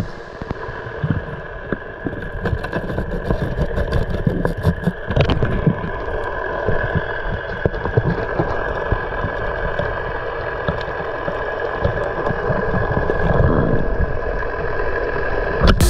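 Underwater sound picked up by a diving camera: a steady motor-like hum over low rumbling water noise, with scattered small clicks, thickest in the first few seconds.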